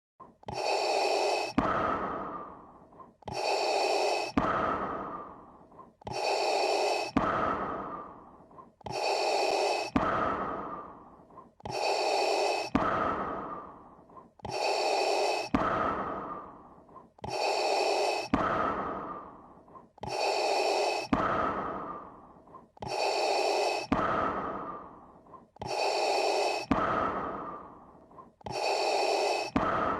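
Darth Vader's respirator breathing sound effect from Star Wars: a hissing mechanical inhale followed by a lower, fading exhale, repeating evenly about every three seconds, ten breaths in all.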